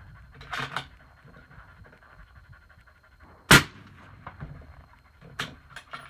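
A 6.5 Creedmoor bolt-action rifle fires a single suppressed shot through a 7-inch .30-cal Thunder Beast Ultra suppressor about three and a half seconds in. Shortly after the start and again near the end there are a few faint clicks from the bolt being handled.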